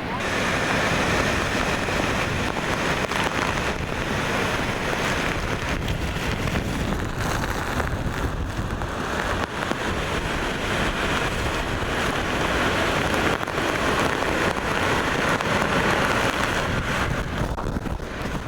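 Wind and driving rain in the eyewall of a Category 3 hurricane: a dense, continuous rush, brighter in places as the gusts strengthen.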